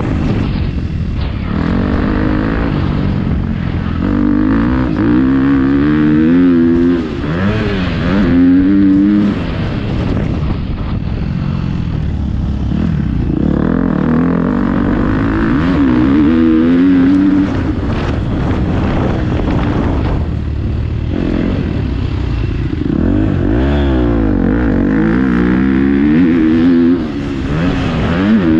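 Motocross bike engine under hard throttle, revving up through the gears again and again, with short drops where the throttle is rolled off.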